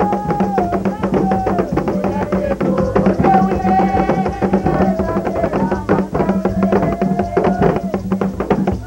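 Haitian Vodou ceremonial music: hand drums beating a fast, dense rhythm while voices sing long held notes over them.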